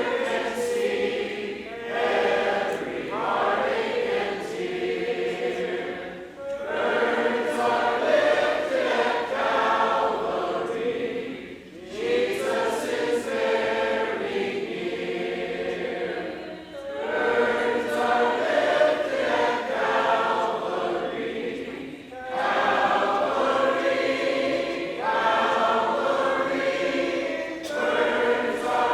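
Church congregation singing an unaccompanied hymn of invitation together, in sung lines of about five seconds with short pauses for breath between them.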